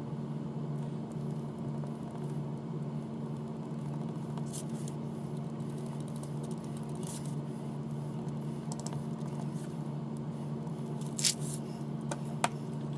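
A small sculpting tool scraping faintly at modeling clay, over a steady low hum; near the end come two sharp taps of objects set down on the cutting mat.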